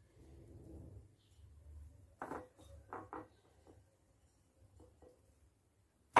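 Hands working courgette pieces through a wet mix of chopped herbs and spices in a bowl. Faint handling sounds, then a few short, sharp clicks and taps from about two seconds in.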